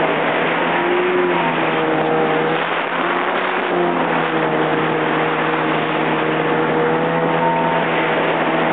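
Yamaha jet ski running fast. Its engine note wavers a little in pitch in the first few seconds, then holds steady over a constant rushing noise.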